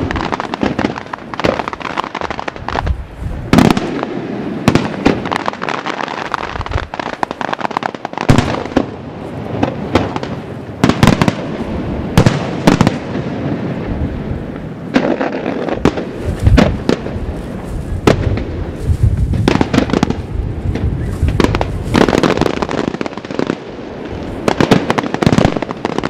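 Aerial firework shells bursting in quick, irregular succession: a steady barrage of loud bangs of varying strength.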